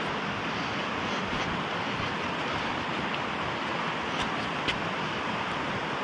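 Steady rushing of a mountain stream flowing over rocks, with two light clicks of stones knocking underfoot a little past four seconds in.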